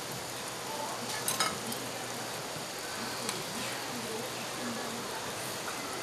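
Red-pepper-sauced deodeok sizzling steadily on a hot stone platter, with a couple of light utensil clinks about a second and a half in.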